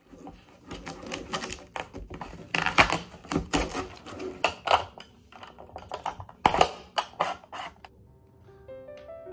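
Packaging crinkling and rustling as it is handled, an uneven run of sharp crackles, loudest in the middle. Near the end the crackling stops and a music-box melody starts.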